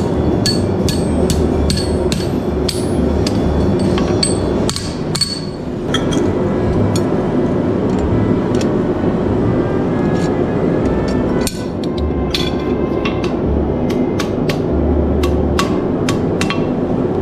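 Hand hammer striking a red-hot 5160 carbon spring-steel knife blade on a steel anvil to shape it. The ringing blows come in steady runs of about three a second, with two brief pauses, over a steady background hum.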